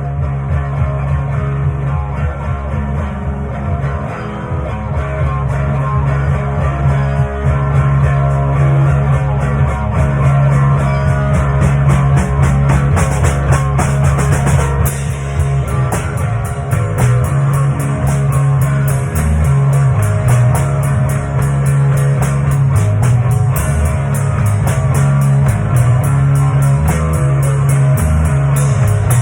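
Rock music with guitar, bass and drum kit, with a steady cymbal beat; it gets a little louder over the first several seconds.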